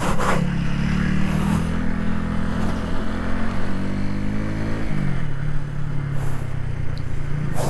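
Motorcycle engine running at low speed on a dirt track. Its note climbs for a few seconds, then drops sharply about five seconds in.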